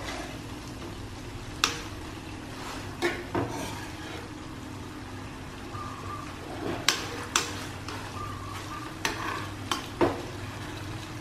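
Fish-sauce glaze simmering and sizzling under a fried egg omelette in a nonstick frying pan as it reduces. A metal spoon clinks against the pan about eight times as sauce is spooned over the eggs.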